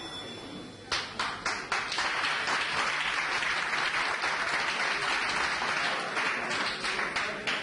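Boxing audience applauding: a few scattered claps about a second in, then steady applause that thins near the end.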